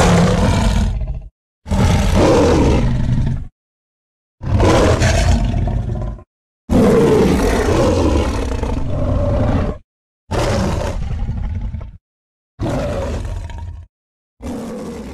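A series of seven monster roars for a wolfman creature, made from edited lion, tiger and King Kong roar recordings. Each roar lasts one to three seconds and is cut off by dead silence. The last few roars are shorter and quieter, and the final one fades away.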